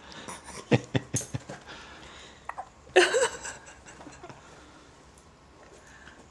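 A baby hiccupping: one sharp hiccup with a short squeak about three seconds in, after a few sharp clicks in the first second or so.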